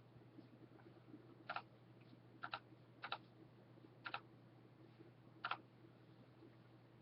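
Slow, scattered keystrokes on a computer keyboard: about six sharp clicks, a second or so apart, some in quick pairs, over a faint steady low hum.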